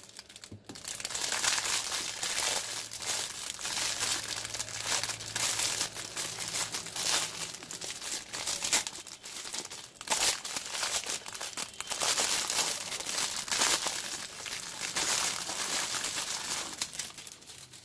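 Plastic packaging crinkling and tearing as the polythene bag of a soldering-tip cleaner's brass wool is opened and handled, with a short pause about ten seconds in.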